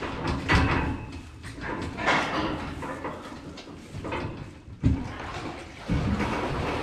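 Clunks and knocks of plastic milk buckets being handled against the metal pen rails of a calf pen. About six seconds in, a steadier rush starts as warm milk is poured from a bucket over the rail into the calves' feeder.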